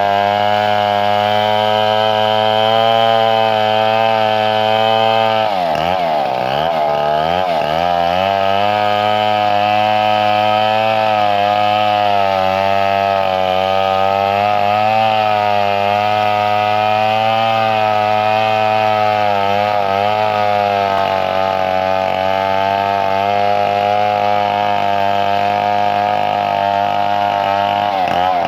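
Chainsaw running steadily at high speed; about six seconds in its pitch dips sharply and wavers for a couple of seconds before climbing back.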